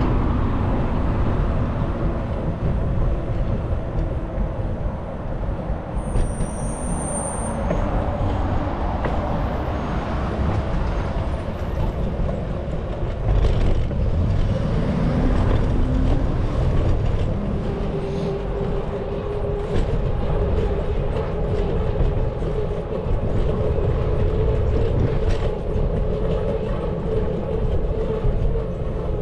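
Steady wind on the microphone and low road noise while riding a bicycle through city streets, with a faint steady hum in the latter part.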